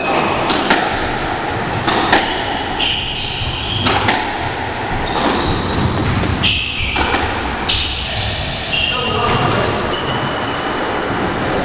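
Squash rally on a glass-free walled court: the hard rubber ball is struck by rackets and smacks off the walls in sharp, echoing knocks about once a second, with short high squeaks from players' shoes on the wooden floor between them.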